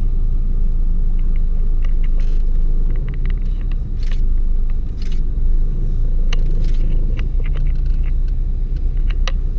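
Vauxhall Astra heard from inside the cabin as it drives slowly, a steady low engine and road rumble, with a few scattered light taps and clicks.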